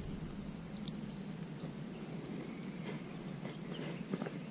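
Insects trilling steadily at one high pitch, with a few faint clicks near the end.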